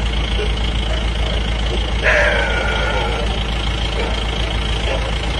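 A vehicle engine idling with a steady low hum. About two seconds in there is a single cry, about a second long, that falls in pitch.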